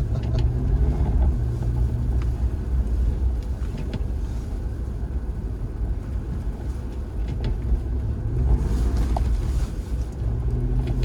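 2003 Jaguar XJR's supercharged V8 engine pulling the car along a snowy road over a steady low rumble. Its pitch rises about eight seconds in as it accelerates.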